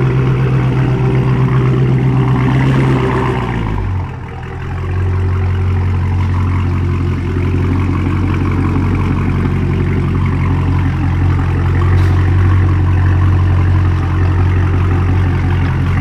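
Dodge Charger's 392 (6.4-litre) HEMI V8 running; about four seconds in the engine speed drops and it settles into a lower, steady idle.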